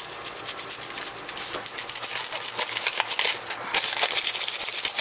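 Stiff nail brush with its bristles cut short, scrubbed fast over a metallic foil transfer sheet on a sewing machine's painted metal body, with the plastic carrier film crinkling under the hand: quick scratchy strokes, broken briefly about three and a half seconds in. The scrubbing presses the foil onto the gilding adhesive so it transfers.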